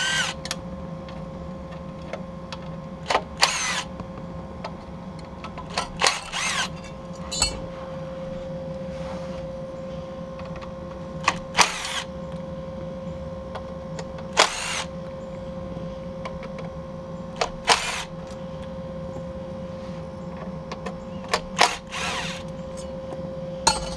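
Cordless driver spinning out the T20 Torx screws that hold the brackets on the sides of a car radio: several short runs of the tool a few seconds apart, over a steady low hum.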